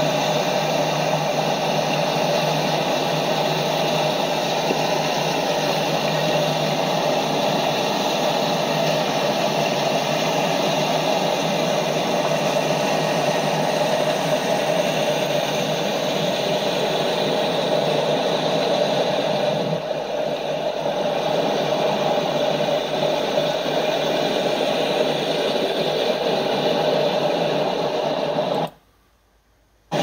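Steady rushing noise of fast river water and waves, played back through computer speakers. It cuts out to near silence for about a second near the end.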